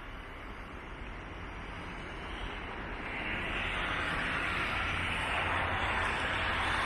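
A vehicle's steady rushing noise, growing gradually louder over several seconds.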